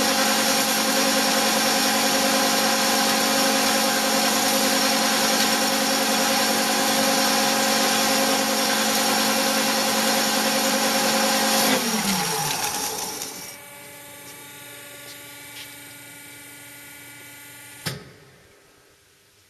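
Bigstone CF450 horizontal bandsaw running steadily, then switched off about twelve seconds in, its pitch falling as it spins down. A quieter hum carries on until a sharp click near the end cuts it off.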